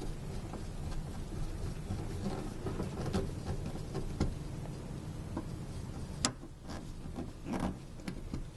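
Scattered clicks, scrapes and rattles of hand tools and parts being worked at the fuel pump housing, over a low rumble, with a sharp click about six seconds in.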